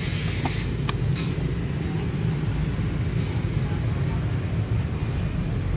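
A key turning in a Vespa LX scooter's seat lock, with a few sharp clicks in the first second or so as the seat latch releases. A steady low rumble runs underneath.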